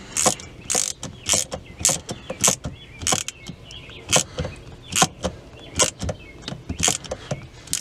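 Hand socket ratchet tightening the shifter linkage clamp bolt: a short burst of pawl clicks with each back-stroke, about a dozen strokes, irregularly spaced.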